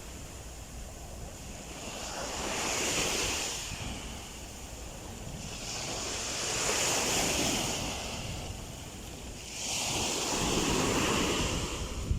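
Ocean surf: waves break and wash in three slow swells, each rising and fading over a few seconds, with wind rumbling on the microphone.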